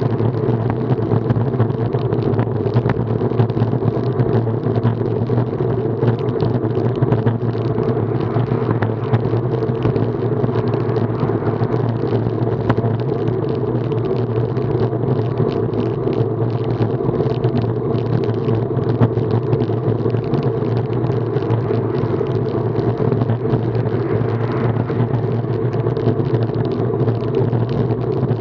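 Steady wind rumble and road noise on a bike-mounted action camera riding at about 25 km/h, a constant low drone with no letup.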